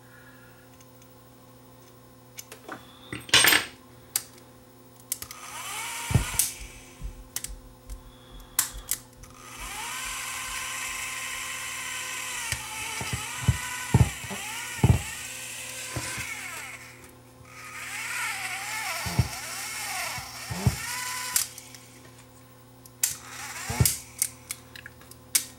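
Sony WM-10 Walkman's tiny tape motor whirring in spurts, its whine sagging and picking up again as the power drops in and out, with handling clicks between the runs. The intermittent power is taken to be a bad switch contact.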